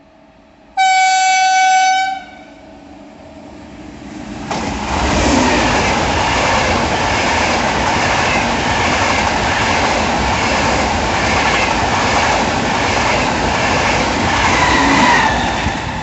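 Frecciarossa high-speed train giving one horn blast, a single steady high tone lasting just over a second, about a second in. It then passes through the station at speed: a loud rush of wheel and air noise that builds over a couple of seconds and holds while the coaches go by.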